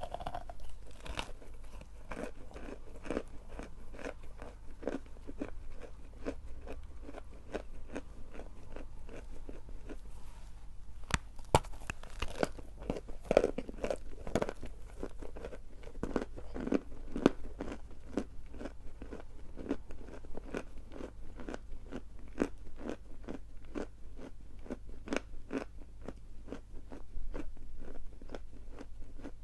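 Close-up crunching and chewing of edible chalk, a dense run of crisp, sharp crunches several times a second, a little louder in the middle.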